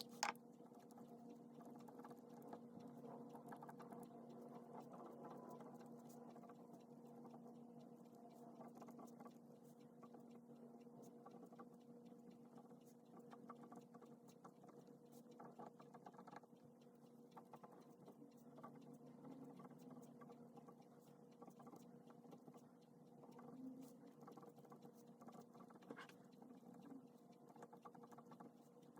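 Pen writing on paper: faint, continuous fine scratching with small irregular ticks, over a steady low electrical hum.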